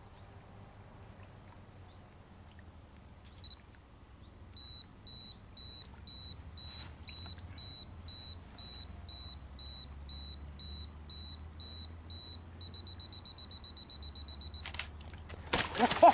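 Digital camera self-timer beeping at one high pitch, about two beeps a second, then speeding into rapid beeps for the last two seconds before the shutter click. Near the end a carp thrashes in the wet carp cradle, splashing water.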